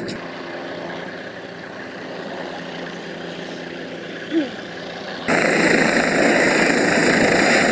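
A vehicle engine idling steadily, with a brief chirp about four seconds in; then, from a sudden cut about five seconds in, a helicopter's turbine and rotor noise, loud and steady as it hovers low.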